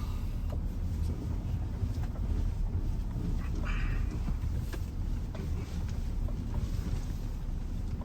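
Grand Vitara SUV driving slowly over rough off-road ground: a steady low rumble with a few faint knocks.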